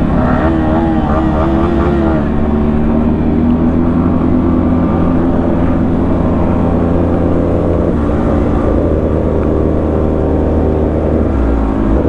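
Sport motorcycle engine running under way, heard from on the bike with wind and road noise. Its note wavers up and down for the first couple of seconds, then holds steady.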